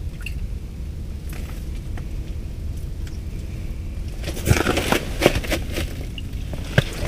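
A steady low rumble, then about four seconds in a quick flurry of crackles, splashes and knocks as a walleye is pulled up out of an ice-fishing hole by hand, with one more knock near the end.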